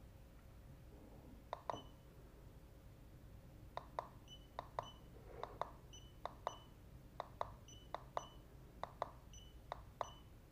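Huepar LM100A laser distance meter taking repeated measurements: each press of its plastic measure button gives a small click and a short, high electronic beep that confirms a reading. One press comes about a second and a half in, then a run of presses follows from about four seconds in, roughly one every half-second to second.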